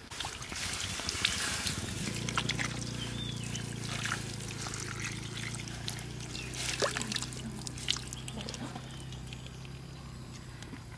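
Water poured into a hot wok of browned whole chickens, trickling and splashing with crackles as it hits the hot pan. A steady low hum comes in about two seconds in.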